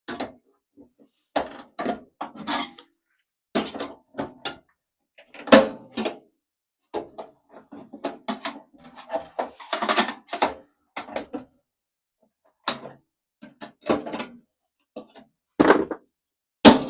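Irregular metal knocks, clunks and rattles of a microwave oven's casing and parts being handled and worked with hand tools while it is taken apart, with a stretch of scraping about ten seconds in and the sharpest knocks about five seconds in and near the end.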